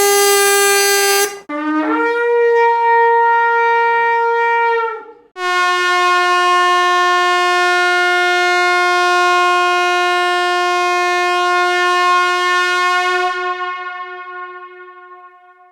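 A succession of horn blasts, each held on one steady pitch. A blast ends about a second in. A higher one sounds from about two to five seconds. Then a long, lower blast starts and fades away near the end.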